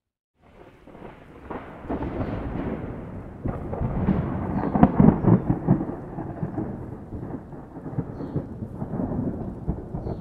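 A long peal of thunder that breaks out of silence about half a second in, rumbling and crackling, loudest about halfway through and then rolling on more softly.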